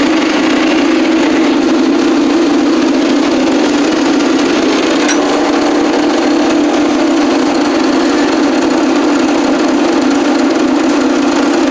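Case 480D backhoe's 3.1 L three-cylinder diesel running steadily just after a 0°F cold start with the block heater plugged in.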